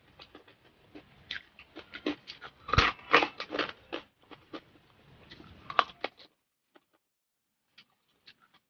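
Close-miked crunching and chewing of crispy fried pork, dense crackly crunches for about six seconds, then only a few faint scattered crunches near the end.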